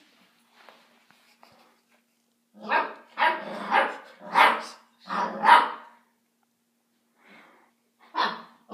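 Basset hound puppy barking: a quick run of about five barks a few seconds in, then one more near the end.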